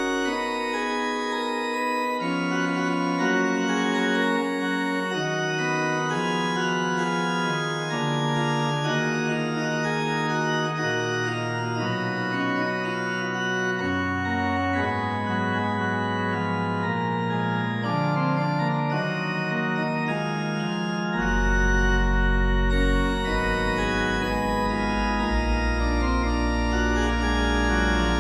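Organ playing slow, sustained chords that change every second or two, with deep bass notes coming in about three-quarters of the way through.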